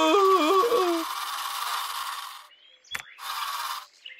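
A wavering, moaning cartoon voice for about a second, from one of the knocked-out bears. It gives way to a soft hiss, with a single sharp click near the three-second mark.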